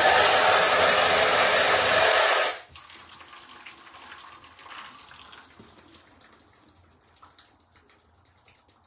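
A loud, steady rushing noise cuts off abruptly about two and a half seconds in, followed by faint scattered clicks and taps.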